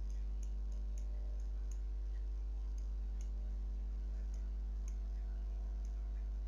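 Faint, irregular clicks of a computer mouse, about a dozen, over a steady low electrical hum.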